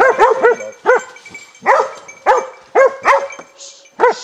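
Hunting dog barking at a wounded wild boar: a run of short, loud barks, about eight in quick, uneven succession.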